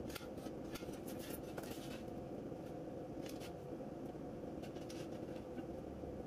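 Light scraping and clinking of a slotted metal strip being shifted and bent on a concrete floor, in short clusters, mostly in the first two seconds and again a few seconds later, over a steady machine hum.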